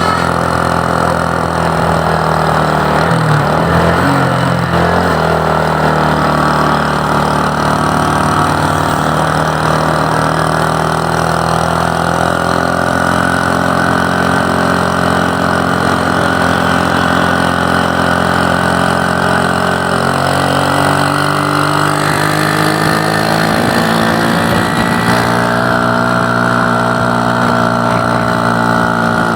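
A motor vehicle engine running steadily on the road, its note drifting slowly lower and then higher with changes of speed.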